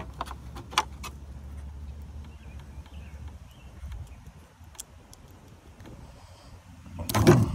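Light plastic clicks as a bulb and socket are handled in a removed Ram Promaster tail light housing, over a low rumble. A short, loud rush of noise comes near the end.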